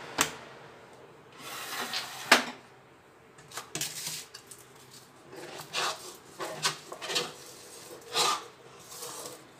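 A metal spoon scraping thick, cooked cornflour-and-glue clay out of a kadhai in a series of short scrapes. Sharp knocks of the pan or spoon come right at the start and, loudest of all, about two seconds in.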